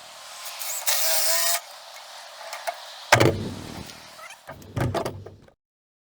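Electric power drill-driver whirring briefly as it drives a screw, followed by two knocks of wood or board being handled.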